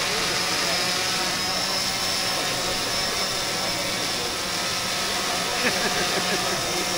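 Steady background noise of a crowded hall with faint voices, with a brief faint sound a little more than halfway through.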